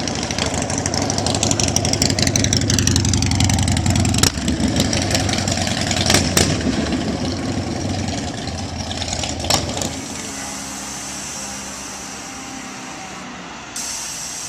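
Custom bagger motorcycle's V-twin engine running and being revved, the pitch rising and falling, with a few sharp cracks along the way. About ten seconds in it drops to a quieter, steadier sound.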